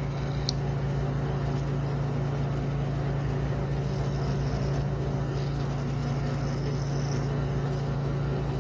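Steady low mechanical hum from a machine running in the workshop, unchanging throughout, with a faint light tick about half a second in.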